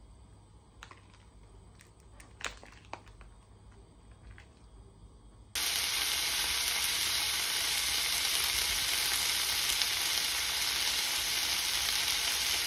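A quinoa, lentil and vegetable sauté sizzling loudly in a hot frying pan. After a few faint clicks, the steady sizzle starts suddenly about halfway in.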